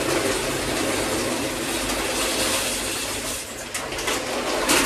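Steady hiss of food cooking on the stove, with chicken frying in a pan and pasta boiling in a pot, and a short clatter near the end.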